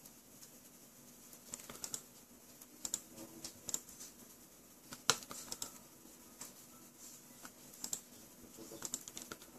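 Scattered computer keyboard keystrokes and clicks in short irregular bursts, the sharpest about halfway through, over a faint steady low hum.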